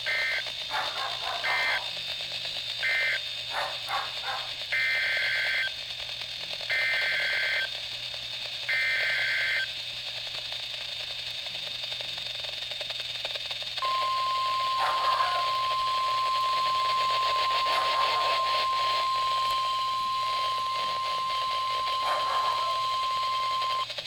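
NOAA Weather Radio EAS data bursts: three short bursts of buzzy two-tone SAME data, then three longer ones about a second each, the end-of-message code followed by the header of the next alert. About 14 s in, the steady 1050 Hz weather-radio warning alarm tone starts and holds for about ten seconds.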